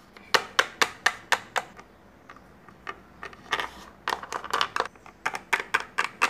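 Hard plastic toy figures tapped on a tabletop to make walking steps: quick clicking taps, about four a second, in two runs with a short lull between them.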